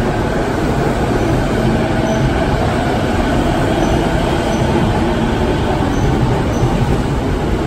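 Chuo Line Rapid E233-series electric train running along the platform, a steady rumble of wheels and motors with a few brief faint high squeaks.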